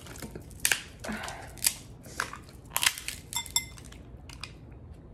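Snow crab leg shells cracking and snapping as they are broken apart by hand: a string of sharp cracks about a second apart, with a quick run of small snaps about three and a half seconds in.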